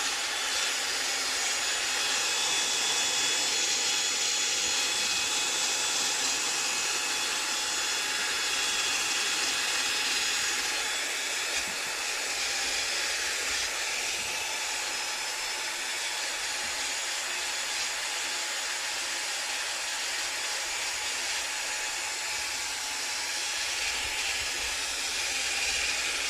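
Electric polisher with a velcro-backed pad buffing the lacquer finish of a guitar neck, running steadily as a hiss with faint high whining tones.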